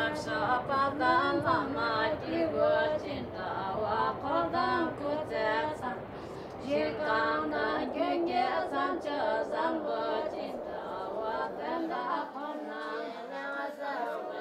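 A group of women's voices singing a melody together, phrase after phrase.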